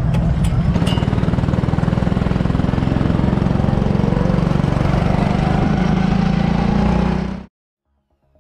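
Small go-kart engine running steadily and loud, with a fast, even pulsing beat. It cuts off suddenly about seven and a half seconds in.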